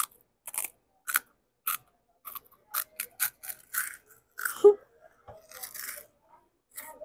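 A child chewing a crunchy snack close to a clip-on microphone: crisp crunches about twice a second, then a louder, denser crunch a little past halfway and softer chewing after.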